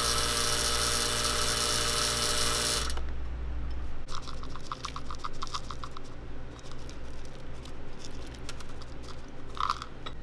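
Electric whipped-cream dispensing machine running steadily with a motor hum and hiss as it pipes cream out of its nozzle, stopping about three seconds in. After it, lighter ticks and small knocks.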